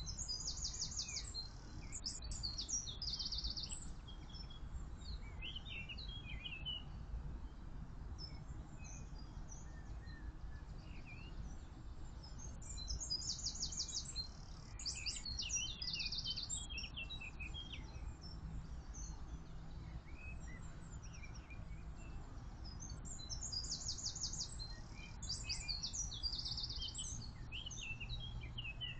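A songbird sings the same high, trilling phrase three times, about eleven seconds apart, with other birds chirping briefly in between, over a steady low background rumble.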